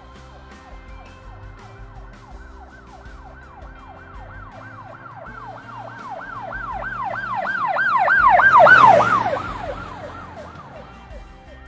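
A siren yelping in fast up-and-down sweeps, about three a second. It grows louder to a peak about eight to nine seconds in, then fades away.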